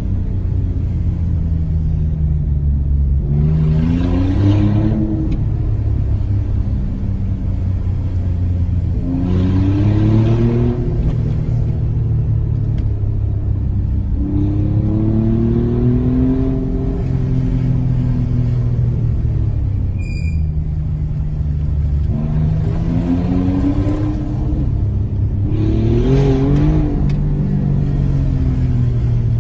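Alfa Romeo Giulia Quadrifoglio's twin-turbo V6, heard from inside the cabin. Its pitch rises and falls several times as the car accelerates and eases off along a winding road, over a steady low road rumble. A short beep sounds about twenty seconds in.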